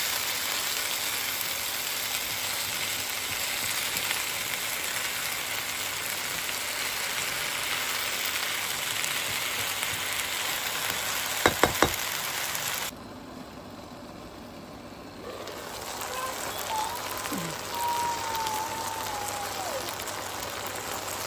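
Okra and sliced onions sizzling as they fry in a nonstick wok, a steady hiss. A little past the middle come three quick clicks, then the sizzle drops off sharply for a couple of seconds before coming back, with a faint wavering whistle-like tone near the end.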